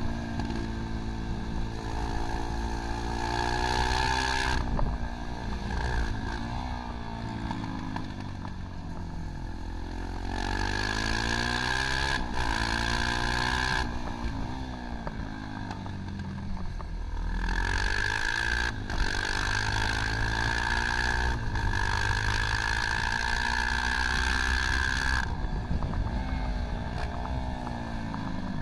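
Supermoto motorcycle engine heard onboard while being ridden hard around a track, its revs climbing and falling over and over as it shifts through the gears and slows for corners, with rushing wind.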